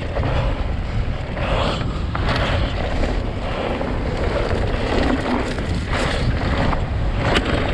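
Wind buffeting the microphone over the rattle of a Specialized Levo electric mountain bike rolling down a dirt trail, with a few sharp knocks from the bike over the ground.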